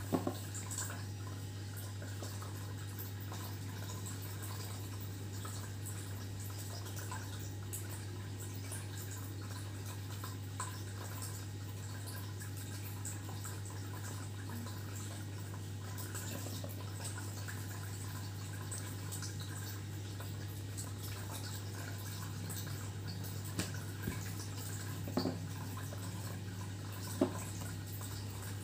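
A steady low hum, with a few faint clicks and taps as a nail polish bottle and its brush are handled, at the start and again near the end.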